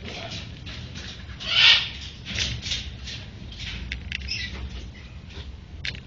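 Parrots in an aviary squawking: a string of harsh screeches, the loudest about a second and a half in.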